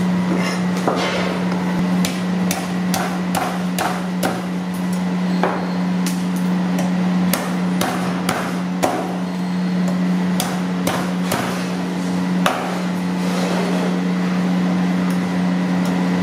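Cleaver chopping frozen fish fillets on a wooden cutting board: sharp, irregular knocks, about one or two a second, over a steady low hum.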